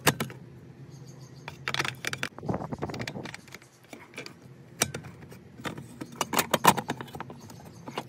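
A series of sharp metallic clicks and rattles as the pull-out disconnect block is pushed back into an outdoor air-conditioner disconnect box and the box's metal cover is handled, restoring power to the condenser. A steady low hum runs underneath.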